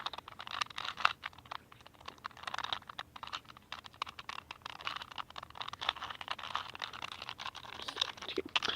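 A 2×2 Rubik's cube being twisted by hand: rapid, irregular plastic clicks as its layers turn.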